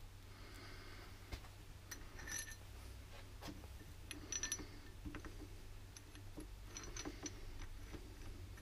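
Faint metallic clicks and clinks as steel bolts are handled and set by hand into the bearing caps of a Land Rover differential, with short ringing clinks about two seconds and about four and a half seconds in. A low steady hum runs underneath.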